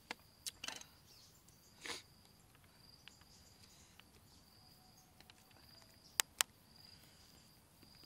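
Small clicks and knocks of a knife cutting green lemon wedges and being set down on a bamboo mat, with two sharp clicks in quick succession about six seconds in. A faint high insect chirp comes and goes.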